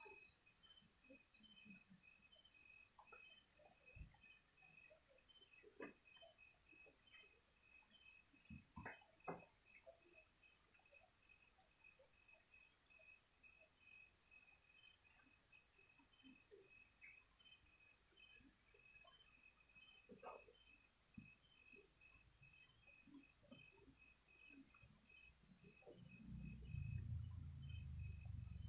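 Insects chirping: a steady high-pitched trill with a fainter chirp repeating evenly several times a second. A low rumble comes in near the end and is the loudest sound.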